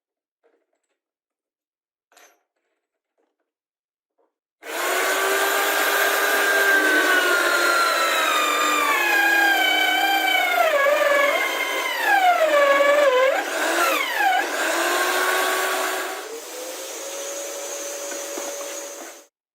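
Electric power tool motor starting about four and a half seconds in. Its pitch drops steadily as it works under load, then it runs quieter with the pitch rising a little before cutting off suddenly near the end.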